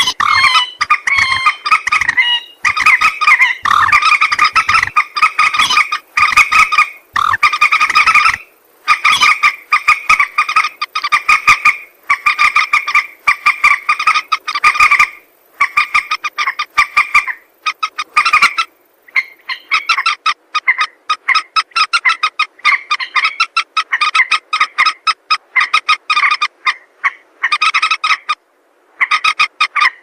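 Common moorhen calling: loud, rapid stuttering runs of clicking notes, each run about a second long, repeated over and over with short pauses.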